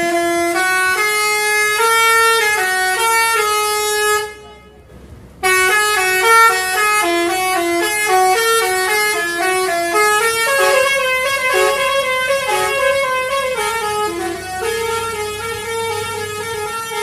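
Indonesian bus 'telolet' multi-tone horn playing a quick stepping melody of short notes. It plays one phrase, breaks off for about a second after four seconds, then plays a longer run.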